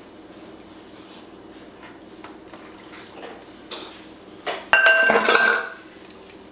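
Kitchen items being handled: a few light knocks, then a loud clattering rattle with a short ring about five seconds in as a bottle and a plastic funnel are put down on the counter.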